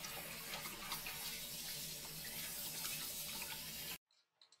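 Water from a kitchen sink's pull-down sprayer running onto a wet dog in a stainless steel sink. It is a steady spray that stops abruptly about four seconds in, followed by a few faint clicks.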